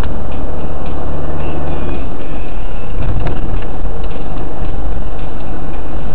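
Loud, steady low rumble of a car's engine and tyres heard inside the cabin while driving in slow city traffic, with a single sharp click about three seconds in.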